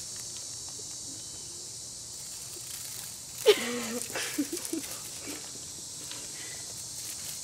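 Steady faint outdoor hiss. About halfway through comes a sharp knock, then a person's brief low murmur lasting about a second and a half.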